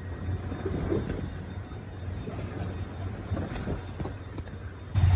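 Wind buffeting the microphone on a small fishing boat at sea, a steady low rumble with water moving around the hull, growing sharply louder near the end.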